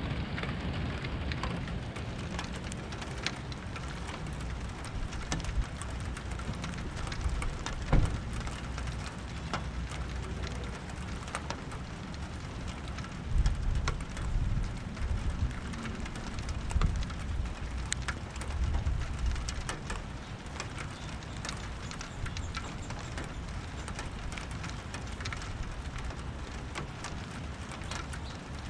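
Steady rain in a thunderstorm, with many sharp drip and drop hits close by and a few low rumbles around the middle. One sharp hit about eight seconds in is the loudest sound.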